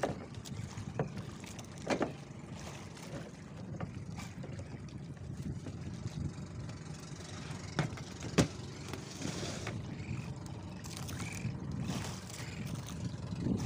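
Steady sea and wind noise around a small wooden outrigger fishing boat, with a few sharp knocks on the boat, the loudest a pair about eight seconds in.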